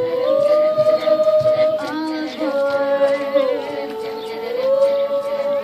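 All-female a cappella group singing held chords in close harmony, the voices sliding together from one chord to the next. More voice parts join about two seconds in, and the top line dips and rises again near the end.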